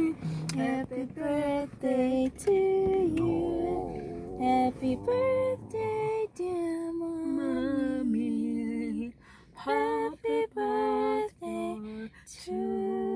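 Women singing a slow song together without accompaniment, with held notes that slide from one pitch to the next and short breaks between phrases; near the end a long steady note is held.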